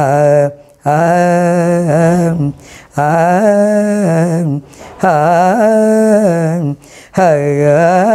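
An elderly woman singing alone without accompaniment, in slow held phrases of about one and a half to two seconds, with the pitch wavering on the long notes and short breaks for breath between. There are about four phrases.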